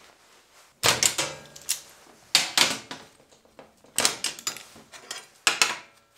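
Steel locking C-clamps being released and taken off steel plates on a metal welding table: sharp metallic clicks and clanks in four or five short clusters.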